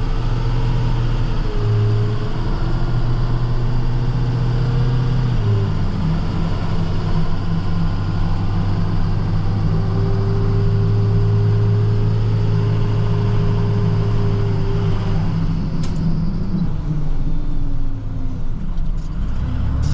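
Truck engine running under way, heard from inside the cab, with a steady low drone whose note shifts down about five seconds in and falls off near the end.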